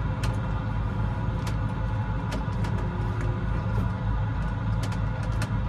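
Case IH 7120 combine's diesel engine running steadily, with a few sharp clicks over it.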